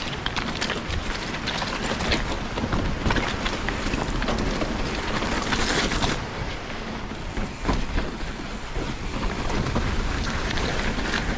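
Wind buffeting the microphone, with scattered clicks and rattles over a low rumble.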